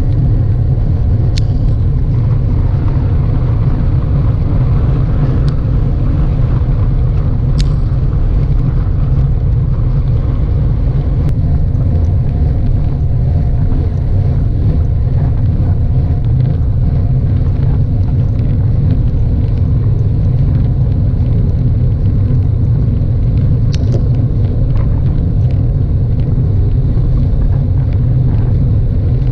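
Steady low rumble of a road bike rolling fast on rough asphalt: tyre and road noise mixed with wind on the microphone. A few sharp ticks break through now and then.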